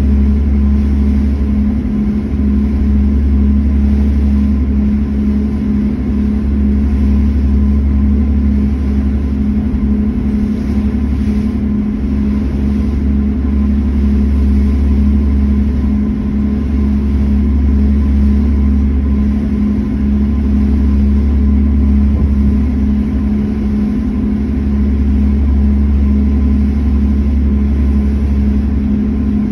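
Harbour ferry's engines droning steadily on the open deck, a constant hum with a heavy low rumble underneath that swells and drops every few seconds.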